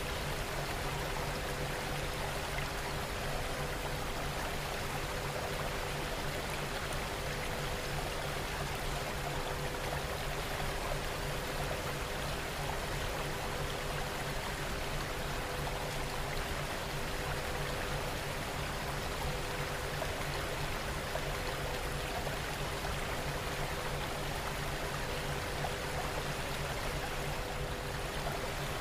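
Steady, even rain ambience with no change throughout. Faint low steady tones sit underneath it.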